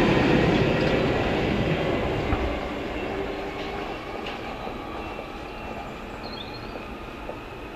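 London Underground Northern line train (1995 Stock) running with low rumble and wheel clatter, its noise dying away steadily over several seconds. There are a few faint rail clicks and a brief faint wheel squeal about six seconds in.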